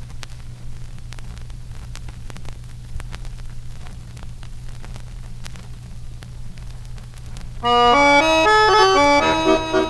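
Surface crackle and clicks from an old vinyl record over a steady low hum, with no music playing. About three-quarters of the way through, an accordion starts a melody of short, stepped notes.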